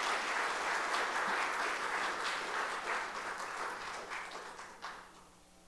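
Audience applauding, a dense steady clapping that starts to thin about four seconds in and dies away near the end.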